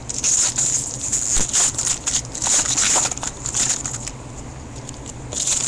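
Foil wrapper of a Topps baseball card pack being torn open and crinkled, an irregular crackle for about four seconds with another short burst near the end.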